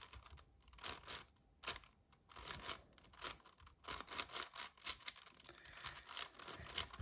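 Magnetic 7x7 Rubik's cube being turned by hand: irregular quick plastic clicks of the layers snapping into place, several a second.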